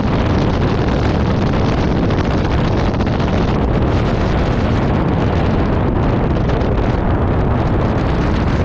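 Heavy wind buffeting the microphone: a loud, steady rush of noise with a strong low rumble.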